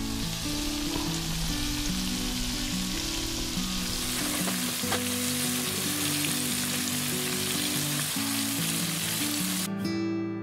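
Floured pieces of pike frying in hot oil with onion, a steady sizzle that cuts off shortly before the end, with background guitar music underneath.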